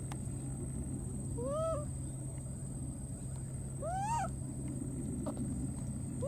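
Baby monkey crying twice, about two and a half seconds apart: short high calls that rise and then fall in pitch, the second climbing higher and lasting a little longer.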